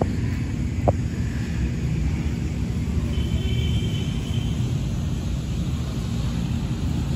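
Wind buffeting the microphone: a loud, fluctuating low rumble, with a faint high tone for about a second near the middle.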